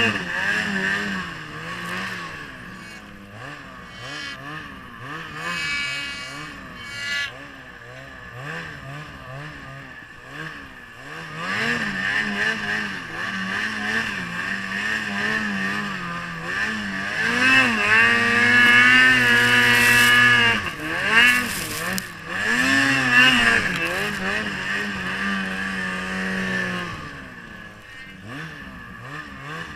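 Ski-Doo Freeride's 800 E-TEC two-stroke engine with an MBRP trail exhaust, revving up and down under load in deep powder snow. The revs climb and hold high for several seconds a little past halfway, then ease off near the end.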